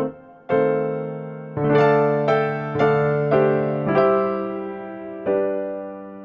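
Background music: an electric piano playing a slow melody, each note or chord struck and then fading away, the last chord left ringing out near the end.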